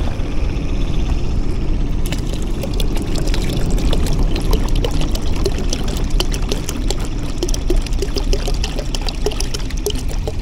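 Tap water pouring steadily from a tilted plastic water bottle into a cooler bag of live freshwater prawns, with many small clicks and crackles setting in about two seconds in.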